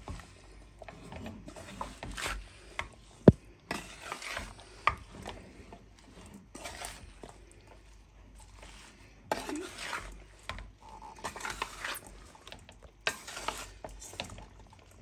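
A wooden spatula stirs chopped vegetables through spiced oil in a metal pan: uneven scraping and shuffling, with irregular knocks against the pan. The sharpest knock, about three seconds in, is the loudest sound.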